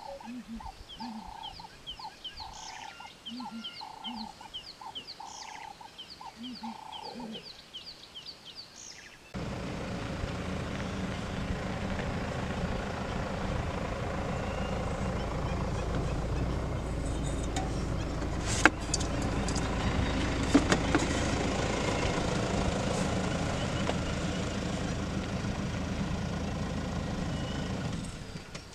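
Birds calling over and over, a short call repeated about twice a second with higher chirps between. About nine seconds in the sound switches abruptly to a loud, steady rumbling noise, with one sharp knock about halfway through.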